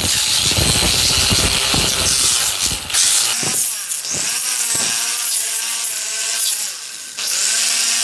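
A power tool running with a loud, hissing grind, its motor pitch dipping and recovering several times in the second half as the load changes.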